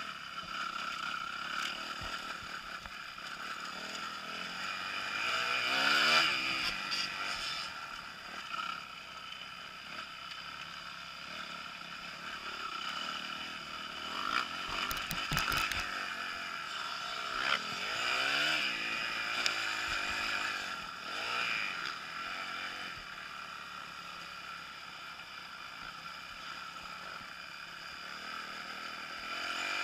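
Kawasaki KX250F's single-cylinder four-stroke engine revving up and falling back repeatedly as the motocross bike is ridden over a dirt track, heard from the rider's helmet camera. There is a short cluster of knocks about halfway through.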